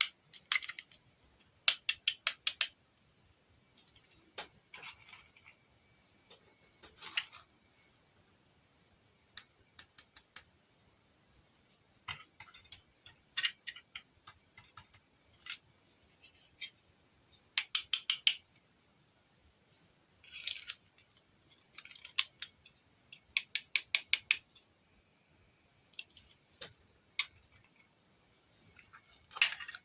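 Small toys and packaging being handled: runs of four to six quick, sharp clicks, with softer rustling between them.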